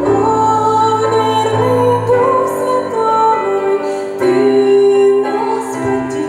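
A woman singing a song with long held notes over instrumental accompaniment.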